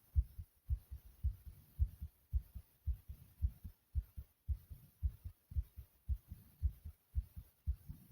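Heartbeat beating quickly and softly: low double thumps (lub-dub), a little under two beats a second, about 110 a minute.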